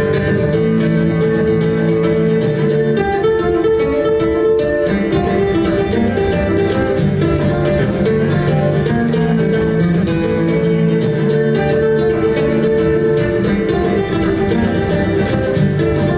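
Nylon-string flamenco guitar played live: a continuous stream of quick plucked notes over held low notes.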